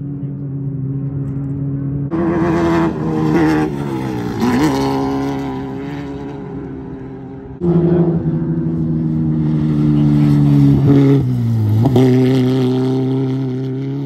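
Off-road race cars going by hard on the throttle. Two cars come in loud, about two seconds in and again near the middle. Each engine's revs dip briefly and then climb again.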